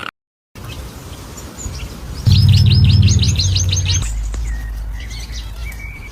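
A songbird singing a quick run of about eight high, down-sweeping chirps, about five a second, over a loud low hum that starts with the song and then eases off.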